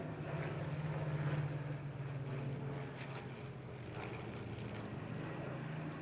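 Piston engines of WWII propeller fighters droning steadily as they fly past, swelling slightly about a second in.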